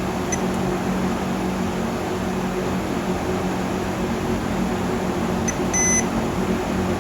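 Steady electrical hum with a low drone, and a short high beep about six seconds in from a digital multimeter being used to test diodes on an amplifier board.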